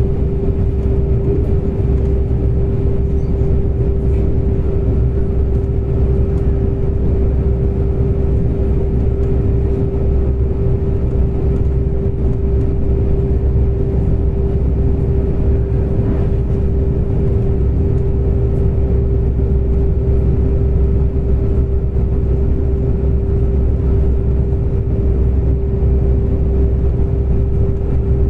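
Inside a passenger train running at speed: a steady low rumble of the wheels on the track, with a constant whine held at one pitch.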